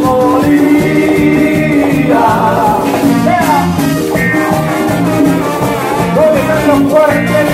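Live cumbia band playing loud: a melodic lead over a steady bass and percussion beat.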